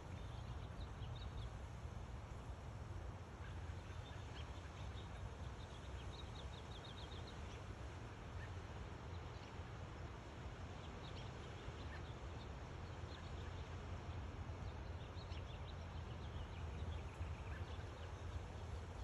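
Outdoor ambience: small birds chirping faintly over a steady low rumble, with a quick trill of repeated notes about six to seven seconds in.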